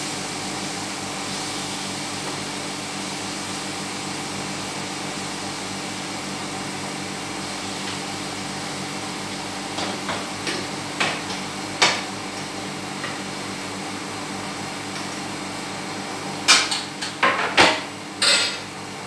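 Steady hum of a kitchen range-hood extractor fan, with a few light clicks of a fork on a metal grill pan about ten to twelve seconds in, then a run of loud metal clatters near the end as the grill pan and a plate are handled.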